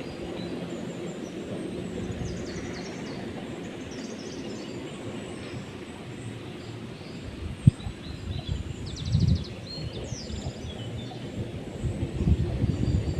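Outdoor ambience: a steady low rumble with birds chirping faintly a few times, and a few dull thumps about halfway through and near the end.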